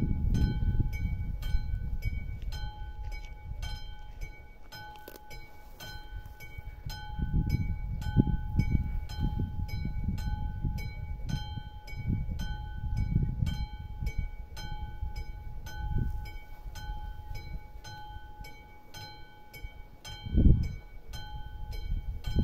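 AŽD 71 level-crossing warning bell ringing in quick, even strokes while the red warning light flashes, signalling that the crossing is closed. Gusts of low wind rumble on the phone's microphone come and go over it, loudest in swells partway through and in a short burst near the end.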